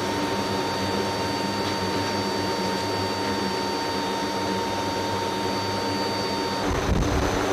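Steady whine and hum of the MC-130J's turbine engines running on the ground, with two thin high tones held over a low hum. About a second before the end the whine cuts out and a louder, rougher low rumble takes over.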